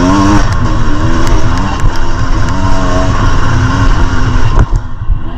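A 2023 Beta 300 RR Race Edition's two-stroke engine revving under riding, its pitch climbing and falling again and again as the throttle is worked. There is a sharp knock about four and a half seconds in, and after it the engine eases off to a lower, quieter note.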